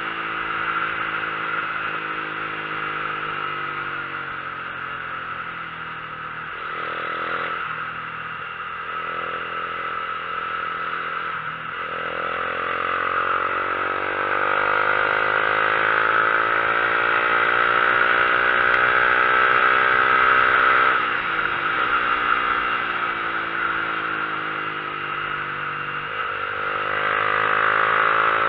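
Vehicle engine pulling uphill on a mountain road, its revs climbing steadily and then dropping sharply about two-thirds of the way through at a gear change before climbing again, over steady road and wind noise.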